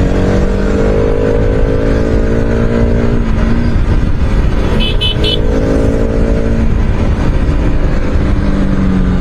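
Bajaj Pulsar RS200's single-cylinder engine running under way in traffic, its note shifting with the throttle and easing off briefly around three seconds and again near seven, over steady wind rumble. Two short high horn beeps sound about five seconds in.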